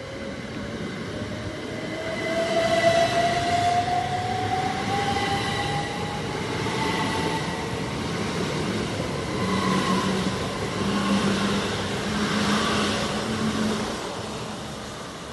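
Great Western Railway Class 387 Electrostar electric multiple unit pulling away along the platform. Its traction motors give a whine that rises steadily in pitch as the train gathers speed, over the running noise of the wheels on the rails, and the sound fades near the end as the train recedes.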